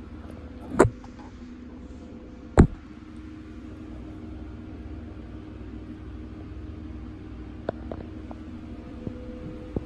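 Steady low mechanical hum carrying a faint steady tone, broken by two sharp knocks, the first just under a second in and the second near three seconds in, then a few faint ticks near the end.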